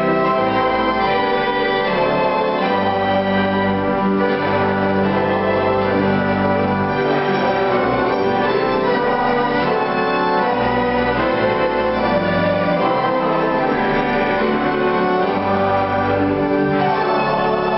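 Violin and upright piano playing a slow piece together, with long held notes over sustained bass chords.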